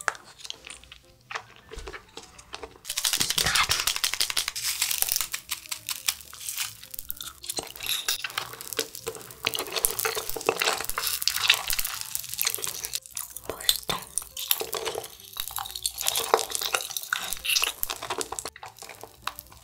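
Close-up wet sucking and slurping on a lip-shaped hard candy, mixed with a plastic candy wrapper crinkling and tearing open. It starts about three seconds in as a dense, crackly run of clicks and rustles.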